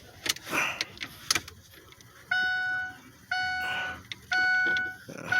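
Ford F-350's electronic warning chime beeping steadily, four long beeps about a second apart, starting a little before halfway. A few sharp clicks come before it.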